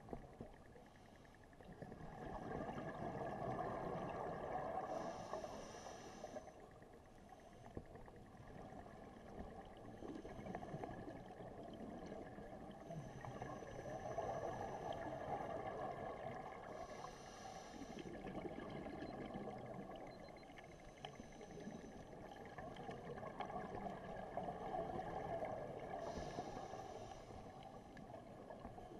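Scuba diver breathing through a regulator underwater: three slow breaths, each a swelling rush of exhaled bubbles with a short hiss from the regulator.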